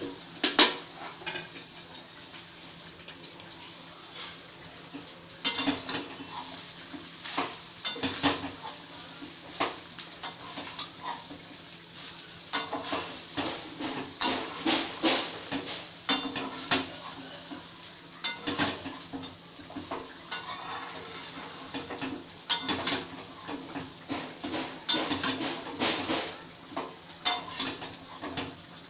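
Flat steel spatula scraping and knocking against a stainless steel kadai while stirring and tossing fried rice. The strokes come in irregular runs of clatter with short pauses between.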